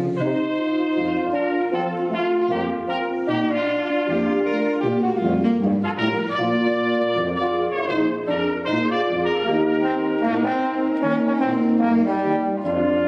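Brass ensemble playing a piece together: trumpets, French horn and tuba sounding sustained chords in several parts that move from one chord to the next every second or two.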